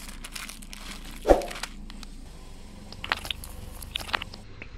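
A single thump about a second in, then a string of sharp crackles and pops near the end as a car tyre rolls over plastic toothpaste tubes, squashing them so the paste squirts out.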